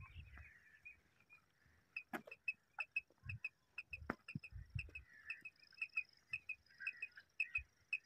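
Hand-held tapcha quail call, played in short high-pitched notes that repeat quickly, often in pairs, with a few soft clicks, starting about two seconds in. It imitates a mother quail's call to lure a quail into the net.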